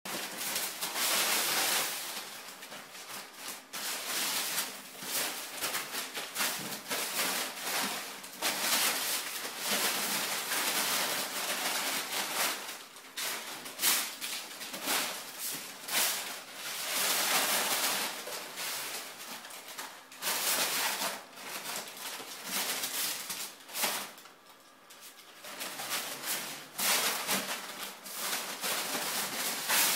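Crumpled brown kraft paper crinkling and rustling in irregular bursts as kittens pounce on it and burrow through it, with a brief lull late on.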